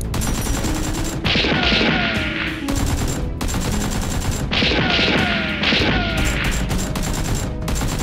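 Dubbed-in automatic gunfire sound effects: rapid shots fired in several long bursts, with short breaks between them.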